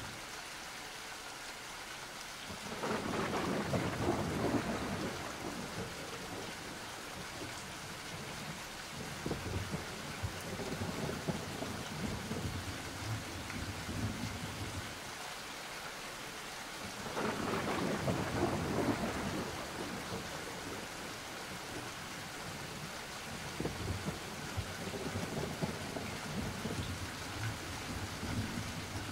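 Steady rain falling, with two long rolls of thunder, the first a few seconds in and the second just past halfway.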